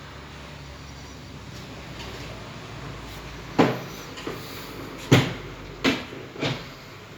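A series of five sharp knocks over a steady low hum, coming in the second half, with the loudest a little past five seconds in.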